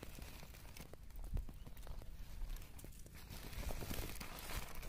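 Freshly caught fish flapping inside a woven plastic sack: irregular soft taps and slaps with rustling of the sack.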